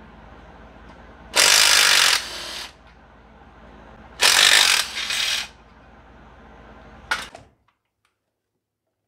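Cordless impact driver run in two bursts of about a second each, loud at first and then easing off, undoing bolts on a Honda GX160 engine; a short click follows.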